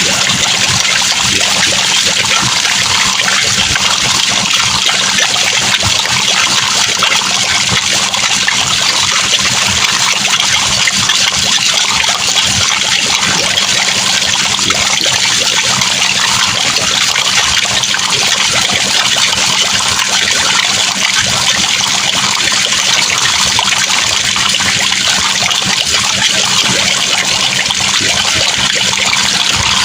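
Homemade sound effect imitating a babbling brook: a steady, unbroken trickling and bubbling like running water.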